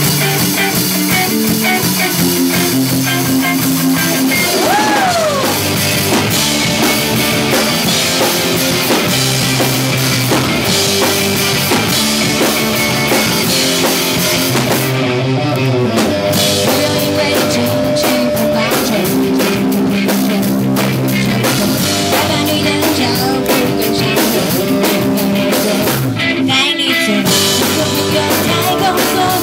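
Rock music played by a band on full drum kit and electric guitars. It starts abruptly and runs loud and steady, with a short falling pitch glide about five seconds in.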